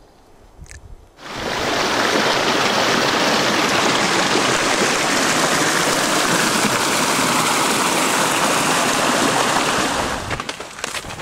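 Small mountain stream pouring over and under fallen logs: a loud, steady rush of water that starts suddenly about a second in and fades near the end.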